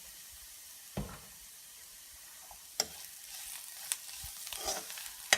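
Chopped onions and spice powders frying in oil in a pan with a faint sizzle, while a spoon stirs them and knocks against the pan about four times.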